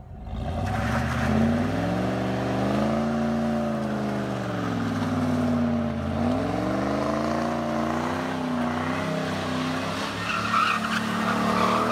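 1995 Pontiac Trans Am's V8 revving up and down several times as the car spins donuts, rear tyres squealing as they slide, the squeal louder about ten seconds in.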